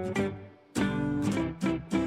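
Background music on plucked guitar: a run of picked notes, a brief gap, then a strummed chord that rings on.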